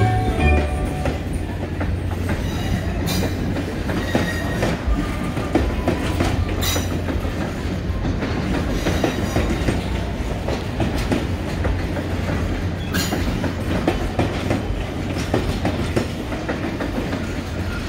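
Canadian Pacific Holiday Train passenger cars rolling past close by: a steady rumble of wheels on the rails, with a few sharp clacks.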